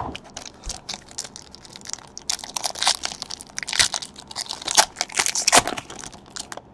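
Foil wrapper of a trading-card pack crinkling and tearing as it is ripped open by hand: an irregular run of sharp crackles and rips.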